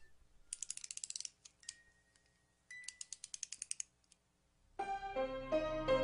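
Two quick runs of mechanical, ratchet-like clicking, about a second each. Then, nearly five seconds in, a louder keyboard melody begins: plucked, harpsichord-like notes over a low bass.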